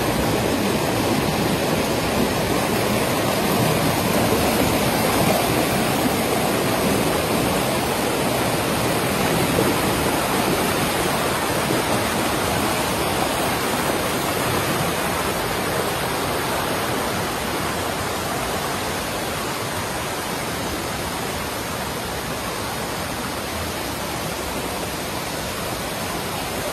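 Mountain river water rushing over rocky rapids, with a waterfall beyond: a steady loud rush that eases slightly toward the end.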